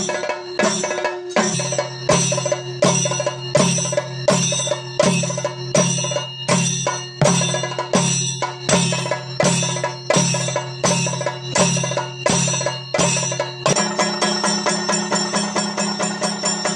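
Ritual percussion accompanying a Muthappan theyyam: heavy drum strokes at a steady beat of about three every two seconds, over a metallic ringing. Near the end the rhythm changes to a faster, even roll.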